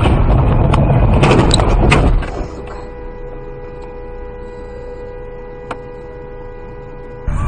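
Dashcam car braking hard on a snowy road: loud tyre and road noise with several sharp knocks. After about two seconds the noise drops away to a quiet steady hum as the car comes to a stop.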